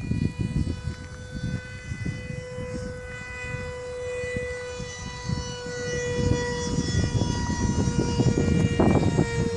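Ducted fans of a giant-scale Boeing 737-300 RC model whining in flight: one steady high whine with many overtones and slight shifts in pitch. Under it is a gusty low rumble of wind on the microphone, and the sound grows louder in the second half.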